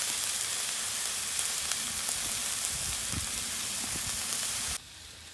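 Beef steaks searing in a hot pan, a steady sizzle with small scattered pops. The sizzle cuts off suddenly near the end.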